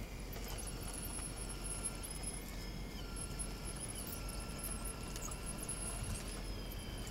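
Electric drive of a 1/12-scale RC Caterpillar 973B track loader whining as the model crawls over loose soil. The high whine steps up and down in pitch every second or two with the throttle, over small clicks from the running gear.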